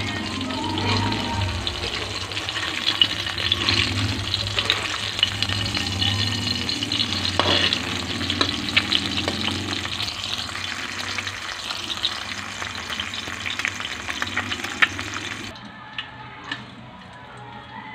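Egg frying in hot oil in a metal pan: a steady sizzling crackle with frequent sharp spits of oil. The sizzle cuts off suddenly about fifteen seconds in, leaving a quieter background with a few clicks.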